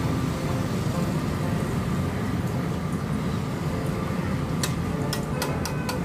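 Banana chips deep-frying in a large iron kadhai of hot oil: a steady sizzle over a low rumble. About two-thirds of the way in come several sharp metal clacks as the perforated ladle is knocked and shaken against the pan.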